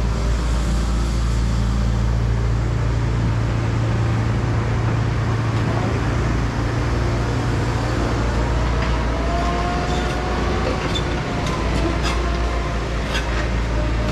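Cat 335 Next Gen excavator working: its diesel engine runs steadily with a deep hum. From about halfway through, a hydraulic whine rises slowly in pitch, with scattered sharp clicks near the end.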